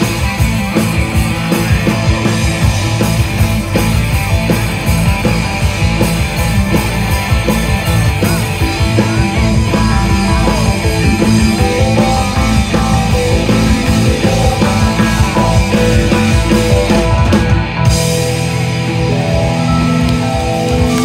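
Live rock band playing an instrumental passage on electric guitar, bass guitar, keyboards and drum kit. Near the end the cymbals drop out and the band holds sustained notes.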